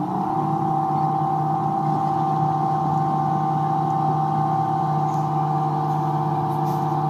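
A motor ship's engine running steadily at cruising speed, heard from inside the wheelhouse: an even, low drone with a steady high whine over it.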